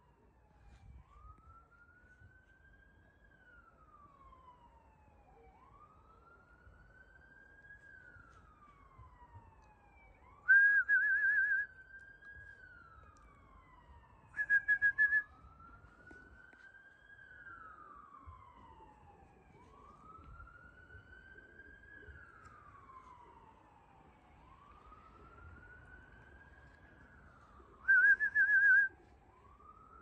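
Emergency vehicle siren wailing faintly, its pitch slowly rising and falling about every four seconds. Three short, much louder trilling beeps cut in: one about ten seconds in, one about fifteen seconds in, and one near the end.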